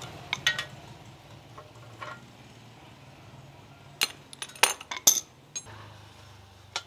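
Hand tools clinking: an adjustable wrench and a crank puller knocking against each other, the bicycle's bottom bracket and the tiled floor while a crank is taken off. Scattered sharp clinks, a couple near the start, one about two seconds in and a quick run of them around four to five seconds in.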